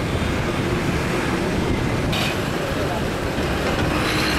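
Road traffic noise heard from a moving vehicle: a steady low rumble and hiss, with one brief sharp high sound about two seconds in.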